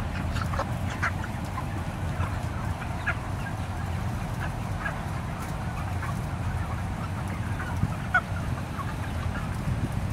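A large flock of broiler chickens giving many short, scattered calls over a steady low rumble.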